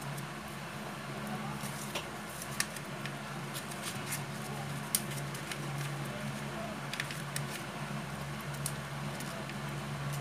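A sheet of yellow paper being folded, creased and twisted by hand: soft rustling with scattered sharp crinkles, over a steady low hum.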